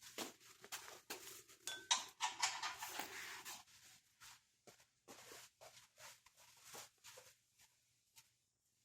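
Hands picking up and handling tools and parts: scattered light clicks and knocks, with a stretch of rustling and scraping about two to three and a half seconds in.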